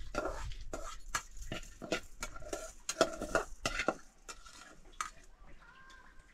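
A utensil stirring and scraping in a metal pot, quick clinking strokes for about four seconds, then quieter.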